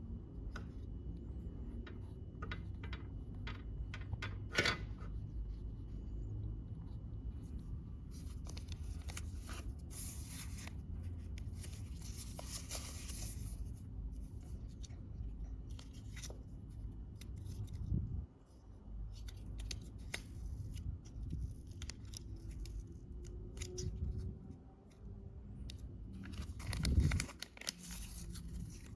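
Plastic packaging of small tempered-glass protectors being handled and torn open: scattered clicks and taps, with longer stretches of tearing plastic about eight to fourteen seconds in and again near the end, over a steady low hum.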